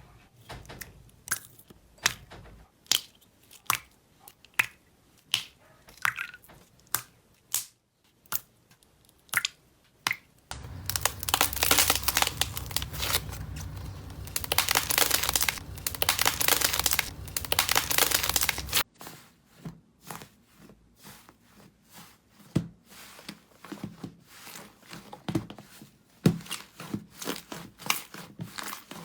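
Slime being handled by hand, making sharp separate pops about once a second. About a third of the way in it turns to dense, continuous crackling for about eight seconds, then goes back to scattered pops.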